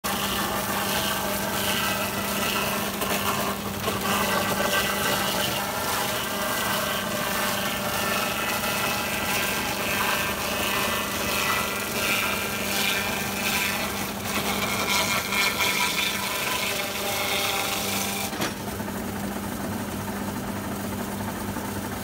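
Electric log-rounding machine shaving the bark off a pole as it is fed past the spinning cutter head: a steady motor hum under loud scraping and shaving. About 18 seconds in, the pole clears the cutter and the scraping stops, leaving the motor running free.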